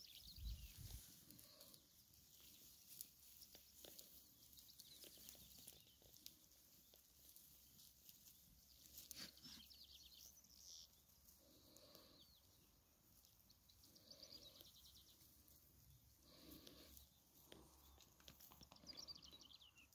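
Flock of sheep and lambs, quiet overall, with faint bleats now and then.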